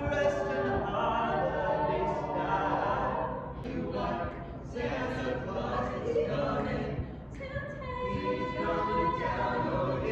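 A group of carolers singing a cappella, several voices together in harmony, with brief breaks between phrases about four and seven and a half seconds in.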